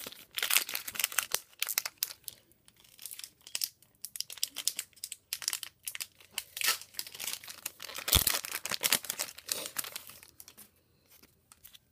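Baseball card pack wrapper crinkling and tearing as a pack is opened and the cards are handled, with irregular bursts and a louder rip about eight seconds in.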